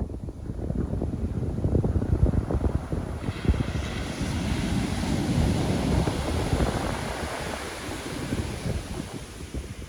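Pacific Ocean surf: a wave breaks and washes up the shore, its hiss building about three seconds in and fading near the end, with wind buffeting the microphone.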